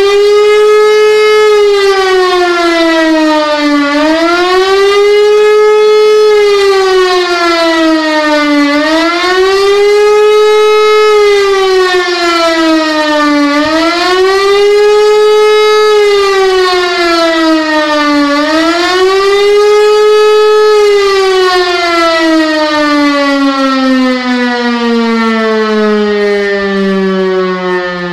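Civil defence siren sounding a wailing tone that rises and falls about every five seconds, the pattern used in Germany to warn the population. About three-quarters of the way through the wail stops and the pitch falls slowly and steadily as the siren winds down.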